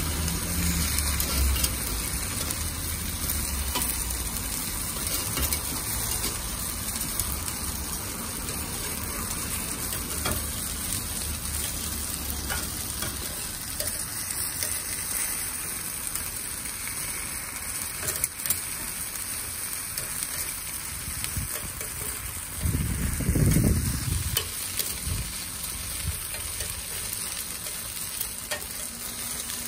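Batter balls sizzling steadily in the oiled holes of a takoyaki griddle while metal picks turn them, with faint clicks and scrapes of the picks against the plate. A short low rumble breaks in about two-thirds of the way through.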